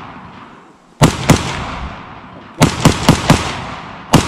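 Rifle shots from an AR-15-style rifle, seven in all: a quick pair about a second in, four in rapid succession a little later, and one more near the end. Each crack is followed by a fading echo.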